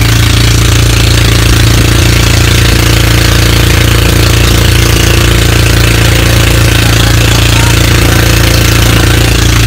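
A fishing boat's engine running steadily at one speed, a loud low drone that holds its pitch, with a rush of wind and water over it.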